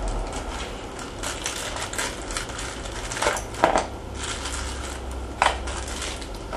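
Thin clear plastic bag crinkling and rustling as a small servo is unwrapped from it, with a couple of sharper clicks about three and a half and five and a half seconds in.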